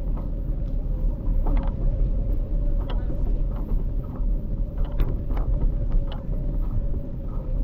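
Street ambience heard while moving along: a steady low rumble with a constant whine held on one pitch, scattered light clicks and ticks, and faint voices.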